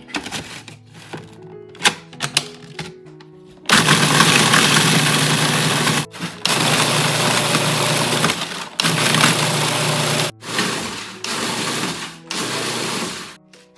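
Food processor grinding graham crackers into crumbs, run in several bursts with short stops between. Before it starts, a few sharp plastic clicks as the bowl lid is fitted and locked.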